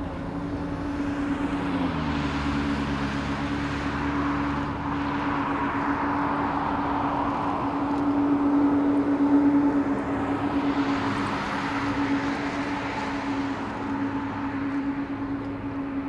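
Boeing 777-200 jetliner's engines running at taxi power: a steady jet drone with a constant hum, growing louder to a peak about nine seconds in as the aircraft turns nose-on, then easing as it moves away.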